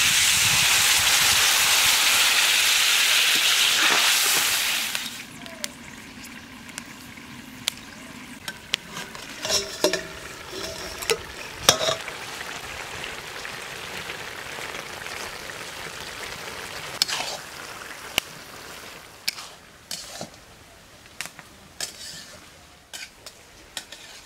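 Water poured into hot oil in a metal kadai of fried star fruit pieces and dried chillies, giving a loud, steady sizzle that cuts off about five seconds in. Then a quieter sizzle with sharp metal clinks of a pot lid and cooking utensils.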